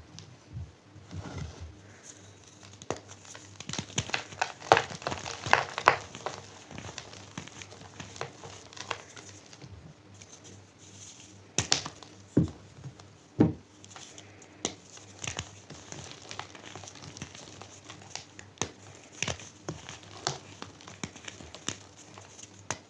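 Blocks of gym chalk being crushed and crumbled: a run of irregular dry crunches and crackles, densest about a quarter of the way in, with two sharp single cracks a little past the middle.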